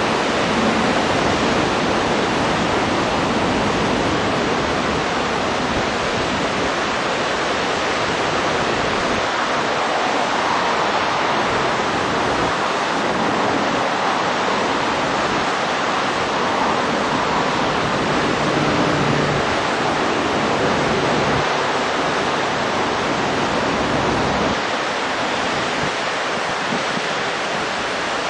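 Flowing river water rushing steadily, an even hiss with no distinct bird calls over it.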